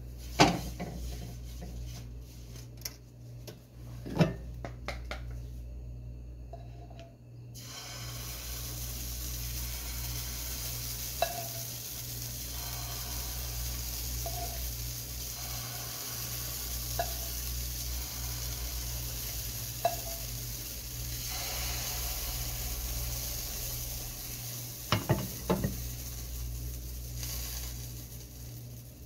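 A utensil knocks and scrapes against a frying pan. About eight seconds in, pancake batter starts sizzling in hot oil in the pan, with a spoon giving a light tap every few seconds and a cluster of knocks near the end. A steady low hum runs underneath.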